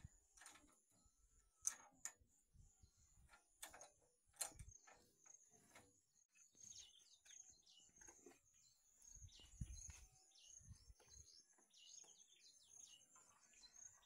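Faint birds calling with short, falling chirps from about halfway through, over a steady high-pitched drone, with a few faint clicks and knocks in the first half.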